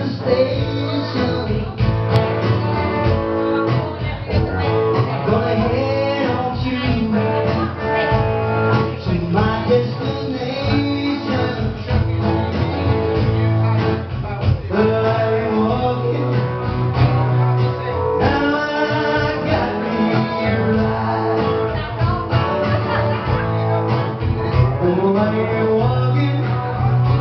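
A man singing live into a microphone while playing an acoustic guitar: a solo voice-and-guitar song that goes on without a break.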